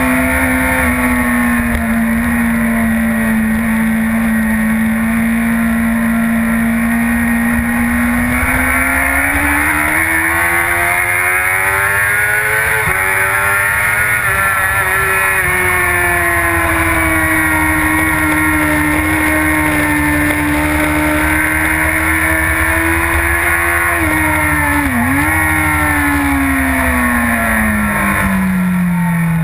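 Onboard sound of a 2011 Yamaha R1's crossplane inline-four engine at speed, over steady wind rush. The engine note climbs under throttle with a small break partway up, then slowly falls, dips sharply for a moment near the end and winds down as the bike slows.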